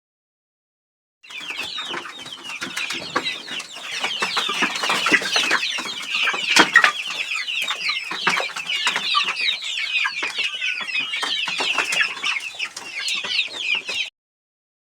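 A flock of chickens calling, many short high calls overlapping at once. It starts abruptly about a second in and cuts off suddenly just before the end.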